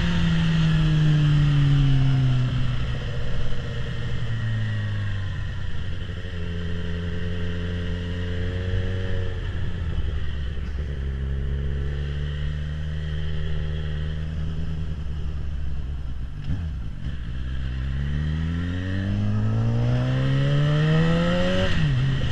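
Suzuki GSX-R750's inline-four engine through a full Akrapovic exhaust. The revs fall over the first few seconds and then hold steady at a lower pitch through the middle. They climb again near the end, with a quick gear change just before the end.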